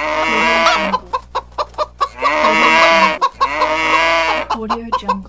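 Animal-call notification ringtone. A drawn-out, pitch-bending call is followed by a quick run of short, sharp calls, and the pattern repeats about three times.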